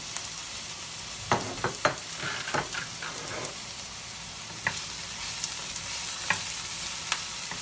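Chopped onion and tomato sizzling in a little hot oil in a frying pan, with a wooden spatula scraping and tapping against the pan now and then as they are stirred.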